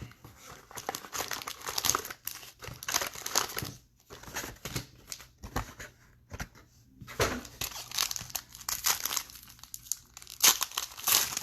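Chronicles baseball card packs being opened: plastic wrappers crinkling and tearing, with cards being handled, in irregular bursts and a quieter stretch in the middle.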